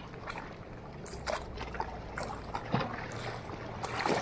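Sea water lapping and splashing against a small fishing boat's hull, with a few irregular sharp splashes or knocks about a second and a half apart.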